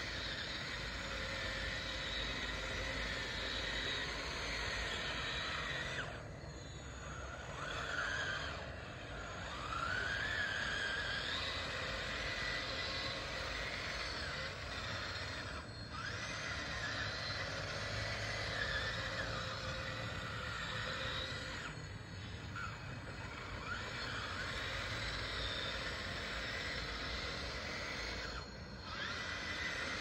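Electric drive motors of a radio-controlled DXR2 bulldozer whining as it moves over loose gravel, the whine rising and falling in pitch with the throttle. It eases off briefly five times.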